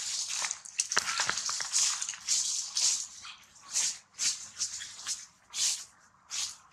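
Dry fallen leaves crackling and rustling in short, irregular bursts as macaques shift about on them.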